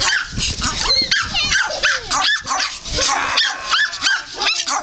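Several puppies yapping and whining at once as they play-fight, a constant overlap of short high-pitched yips and squeals.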